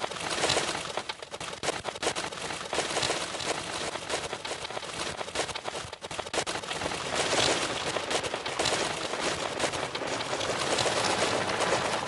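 Dense, rapid crackling of clicks and pops, like a rattle of gunfire or heavy static, that starts suddenly after a moment of silence. It is a sound effect in the solo's sound-collage soundtrack played over the stage speakers.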